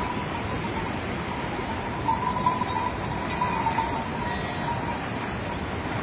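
Steady rush of a shallow mountain river, with splashing as a flock of sheep wades across it. A thin ringing tone runs under the water noise and grows stronger a couple of seconds in.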